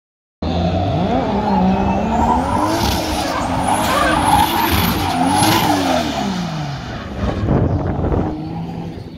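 Drift cars sliding with engines revving, pitch climbing and falling repeatedly over a tyre screech, starting abruptly about half a second in. More than one engine can be heard at different pitches. The sound fades toward the end.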